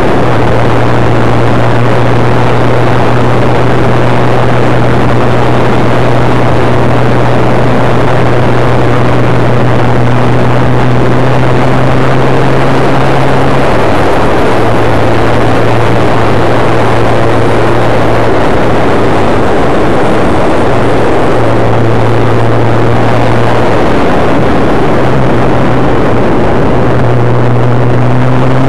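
Loud wind rush on a sunglasses-mounted microphone over a Suzuki GSX-R1100's inline-four engine running at a steady cruising note. The engine note drops out briefly several times in the second half and climbs in pitch near the end as the bike speeds up.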